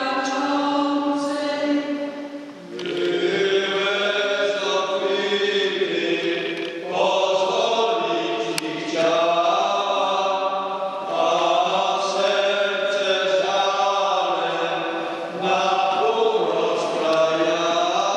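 A church congregation singing a hymn together in long held notes, in phrases of a few seconds with brief breaks between them.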